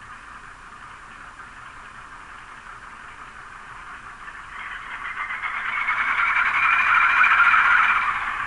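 Model GE U20C locomotive's ESU LokSound Select sound decoder playing a GE FDL diesel engine sound through its small onboard speaker. The engine sound runs steadily, swells louder about halfway through, and eases back near the end.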